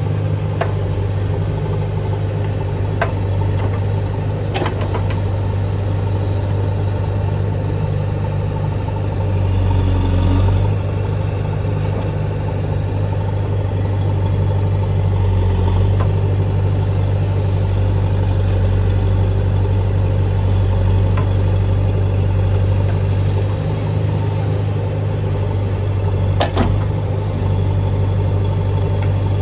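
JCB 3DX backhoe loader's diesel engine running steadily while it works, with a few short knocks, one of them near the end.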